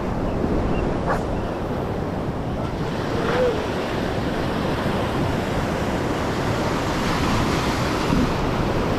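Ocean surf washing steadily over the shore rocks, with wind buffeting the microphone.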